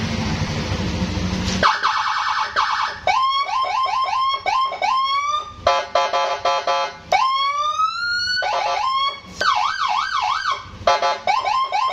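Custom police-escort (patwal) style electronic siren fitted to a Yamaha NMAX scooter, cycling through its tone patterns: after a short noisy hiss it gives fast yelps, repeated rising chirps, rapid even pulses, one long rising wail, a wavering warble and quick pulses again.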